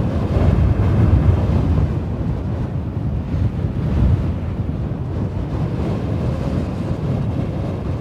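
Strong desert wind blowing as a dense, low-heavy rush of noise, swelling in gusts about a second in and again around the middle.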